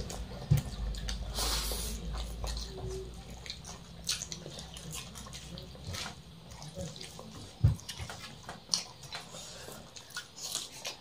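Eating sounds: fingers mixing rice on steel plates, with wet chewing and lip-smacking clicks scattered throughout and two sharp thumps, one about half a second in and one near eight seconds. A low hum underneath stops about six seconds in.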